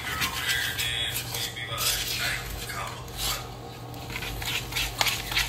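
Metal spoon stirring cornbread batter in a bowl, scraping and clinking against the bowl's sides, easing off briefly a little past halfway.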